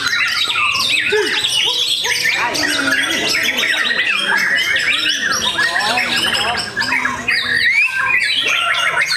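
White-rumped shama (murai batu) singing a fast, varied song of rising and falling whistles and harsh chatter, with other contest birds singing over it at the same time.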